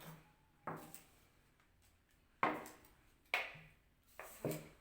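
A handheld plastic grabber tool snapping and knocking as it grabs at banknotes: about five sharp clacks, each with a brief ring, the last two close together near the end.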